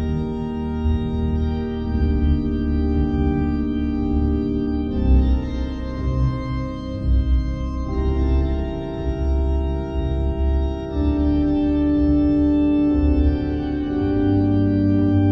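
Background music of sustained organ chords that change about every three seconds over a low bass.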